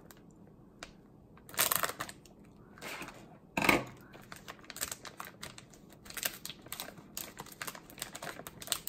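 Scissors cutting across the top of a glossy wafer-cookie snack bag, then the bag crinkling as fingers pull the cut top open. A few separate snips and crackles come in the first four seconds, the loudest just before four seconds in, followed by steady small crinkling.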